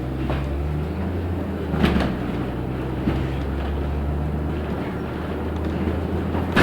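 Inside a LiAZ 6213 articulated city bus on the move: the engine and drivetrain drone steadily. Two sharp knocks are heard, one about two seconds in and one at the very end.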